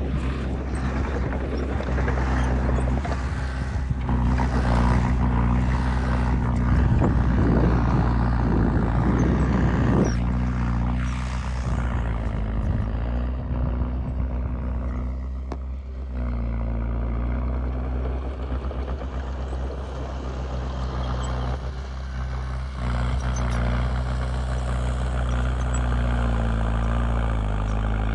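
Komatsu D20P bulldozer's diesel engine running steadily, with a dense rattling and scraping noise over the first ten seconds or so that then eases.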